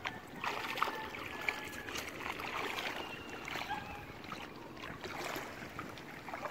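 Shallow seawater splashing and lapping as two large dogs wade and shift about, with a few faint, short high tones in the background.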